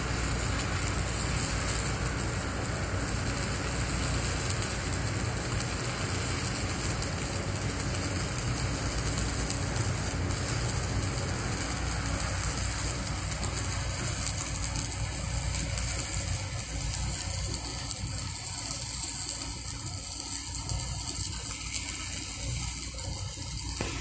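Electric arc welding with a stick electrode: the welding arc crackling and hissing steadily as the weld runs.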